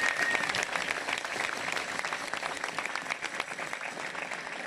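Crowd applauding outdoors, dense clapping that eases slightly toward the end. A thin steady whistle tone sounds over it in the first half second.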